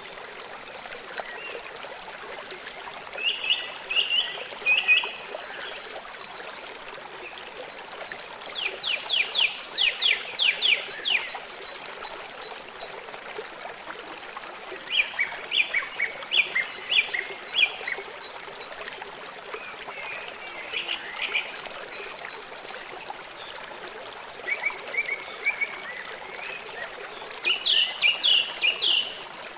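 A stream running steadily, with a bird giving short phrases of rapid chirping or trilled notes every few seconds.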